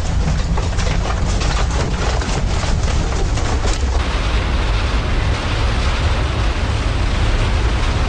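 A building shaking in a strong earthquake: rapid rattling and clattering over a loud low rumble. About halfway through, a cut to another shot brings a steady rumbling roar.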